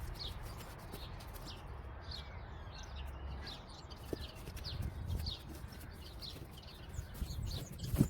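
Small birds calling outdoors: a scatter of short, high, downward-sliding chirps, over a low rumble, with one sharp knock near the end.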